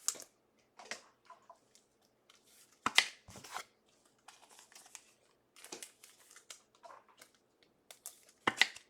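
Trading cards and their packaging being handled: scattered short rustles, slides and crinkles of card and plastic, the loudest about three seconds in and near the end.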